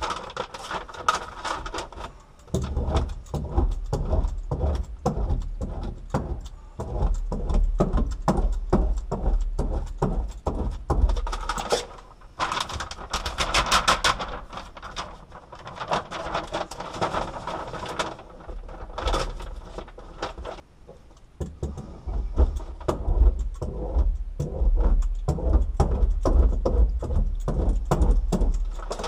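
Hands working sheets of foil-faced Dynamat sound deadener onto a car's sheet-metal floor pan: dense crackling, rustling and knocking as the sheets are pressed and smoothed down. About halfway through, the paper backing is peeled off a sheet with a sharper, brighter crackling.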